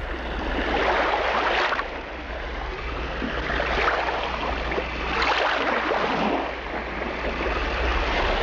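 Sea surf washing on a sandy beach, rising and falling in swells a couple of seconds apart, over a steady low rumble.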